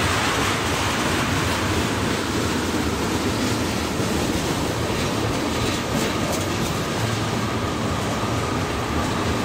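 Freight train's tank cars and covered hoppers rolling past: a steady rumble and rattle of steel wheels on the rails, with a few clicks about six seconds in.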